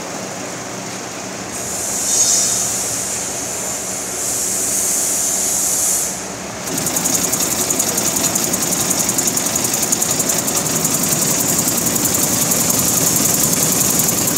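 Nut chopping machine running: a steady motor hum with a rushing hiss over it in the first half. About seven seconds in, a louder, very fast, even rattle starts, typical of the machine's vibrating feeder and sieve classifier shaking.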